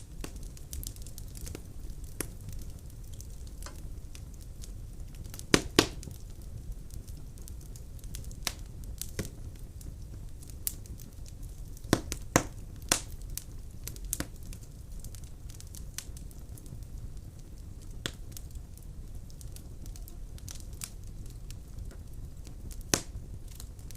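Firewood burning in a fireplace: scattered sharp crackles and pops over a steady low rumble. A few pops are louder than the rest, some close together around the middle and one near the end.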